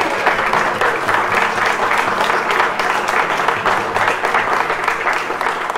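A roomful of people applauding: a sustained round of clapping by a crowd.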